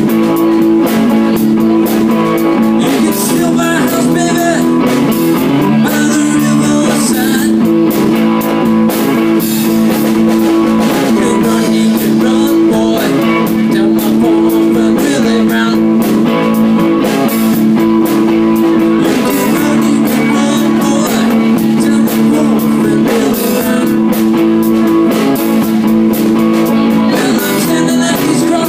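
Live blues band: electric guitar and drum kit playing together, the guitar holding steady low notes over a continuous drum beat.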